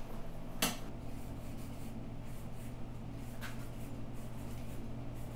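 Bristle tube brush on a safety wire being pulled through a lifter oil gallery of a 5.3 LS engine block, a faint scraping and rubbing, with a sharp tap about half a second in and a fainter one partway through. A steady low hum runs underneath.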